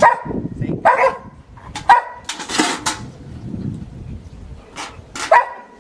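A dog barking in short, sharp single barks, about four or five in all, while a small metal pail is nosed and knocked about on a mat, with a rattling scrape about halfway through.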